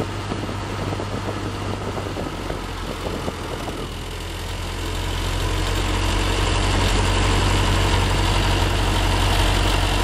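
Model A hot rod's engine idling at a raised speed with the air conditioning and a large fan running, a steady low hum that grows louder about five seconds in. The idle is held up high because the charging system stops charging at a low idle under the AC and fan load.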